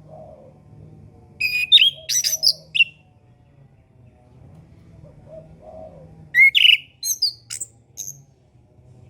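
Orange-headed thrush singing: two short bursts of quick, varied whistled notes with sharp slides in pitch, about four and a half seconds apart. A faint low hum runs underneath.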